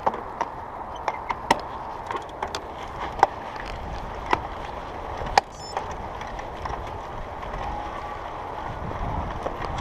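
Mountain bike rolling along a loose dirt trail: steady tyre noise with irregular sharp clicks and knocks from stones and the bike's parts, the sharpest about five and a half seconds in. A low rumble grows from about halfway through.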